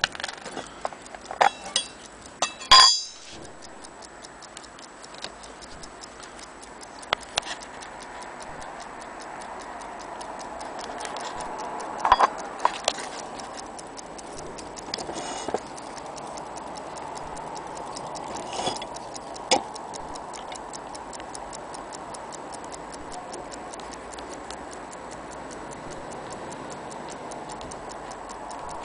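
A small mechanical clock movement's balance-wheel escapement ticking rapidly and evenly, with a few louder knocks, the loudest about three seconds in.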